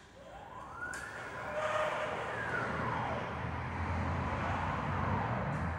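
Stepper motors of a CNC hot-wire foam-cutting machine whining as they drive the gantry, the pitch rising and falling several times as the axes speed up and slow down. A low steady hum sets in a couple of seconds in.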